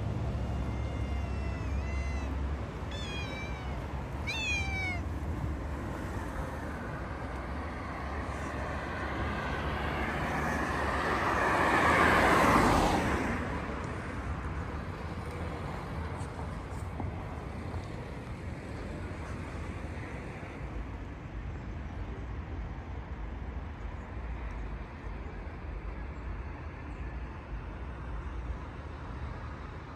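Outdoor ambience with a steady low rumble. A handful of short, high animal calls that bend in pitch come in the first five seconds. About twelve seconds in, a rush of noise swells to the loudest point and fades away.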